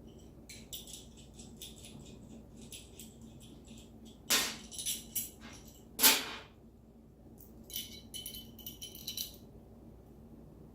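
Small metal hardware (bolts, washers and nuts) clinking and jingling as it is handled, with two louder knocks about four and six seconds in.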